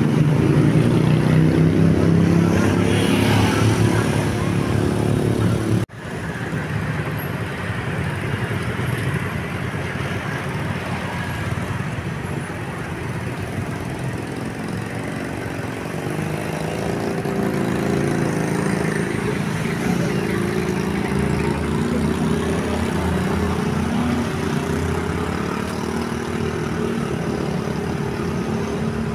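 Bus engine running with road traffic noise, its low tone shifting in steps during the first seconds. The sound breaks off sharply about six seconds in and resumes as a steadier engine and traffic sound.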